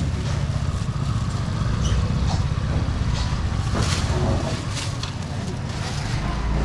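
Steady low rumble of outdoor market background noise, with a few sharp knocks and faint voices.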